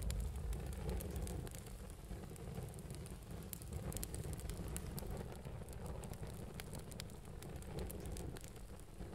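Faint crackling: scattered sharp little clicks over a soft hiss, with a low rumble that fades away over the first two seconds.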